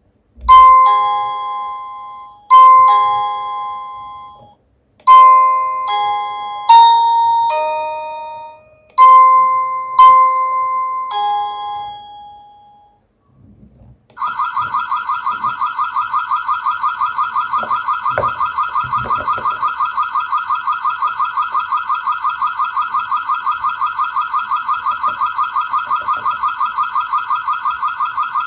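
A Cacazi HYA10 wireless doorbell receiver playing two of its built-in ringtones. First comes a chime tune of decaying ding-dong notes struck in pairs. After a short pause, from about halfway in, a fast warbling electronic ring repeats evenly.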